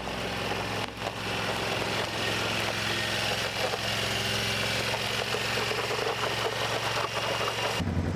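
Side-by-side off-road vehicle's engine running steadily, with a rushing noise over it. The sound changes abruptly near the end.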